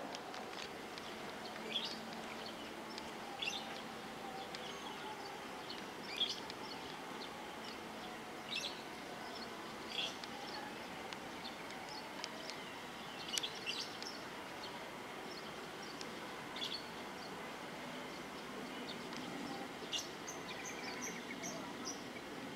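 Birds chirping: short, sharp calls every two to three seconds over faint, steady background noise.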